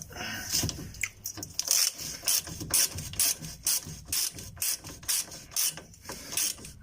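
Ratchet wrench clicking in quick repeated strokes, about two to three a second, while a nut is run down on a newly fitted steering tie rod end.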